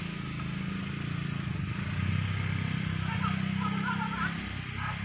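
A motor engine running with a steady low hum, which swells louder in the middle and then eases.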